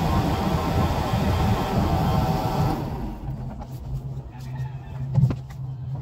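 Crane engine heard from inside the operator's cab, running loud and steady, then dropping to a lower steady hum about three seconds in, with a couple of knocks near the end.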